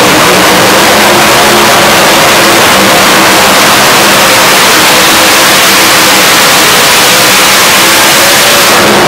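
A multi-engine 7,500 lb modified pulling tractor running at full throttle as it drags a weight-transfer sled: a steady, very loud engine roar.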